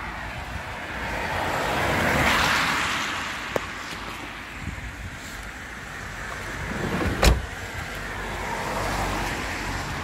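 Cars passing on a wet road with tyre spray hissing, one swelling past about two seconds in and another near the end. A sharp click about three and a half seconds in, then a Peugeot Partner van door shut with a thump just after seven seconds.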